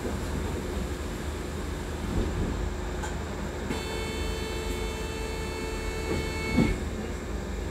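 Upper-deck cabin noise of a Wright Electroliner battery-electric double-decker bus on the move: a steady rumble. About halfway through, a steady high whine joins in for about three seconds and ends with a short knock.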